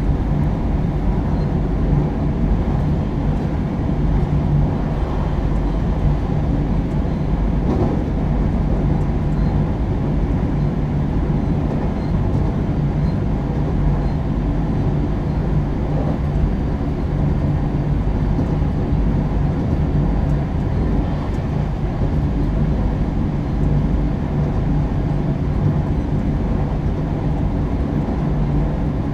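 Inside a JR West 223-0 series electric train with Toshiba GTO-VVVF drive: a steady running rumble of wheels on rail and traction gear, heard from the motor car while the train is under way.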